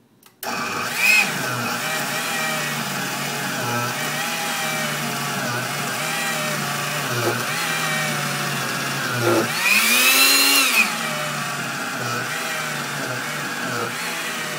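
Countertop blender motor starting up about half a second in and running hard on a thick pepper, garlic and ginger paste with little water, its pitch repeatedly sagging and picking up again as the load bogs it down. It runs louder and higher for a moment about ten seconds in.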